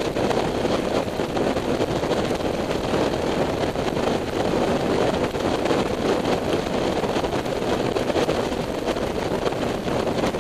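Steady rush of wind on the microphone of a moving motorcycle, with the Honda F3's engine running underneath.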